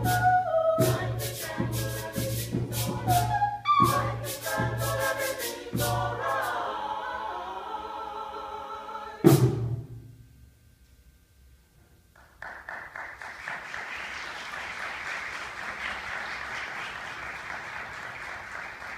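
A small vocal ensemble singing a cappella with shaker percussion keeping a steady beat, the music ending on a held chord cut off by one sharp percussion hit about nine seconds in. After a brief pause, the audience applauds.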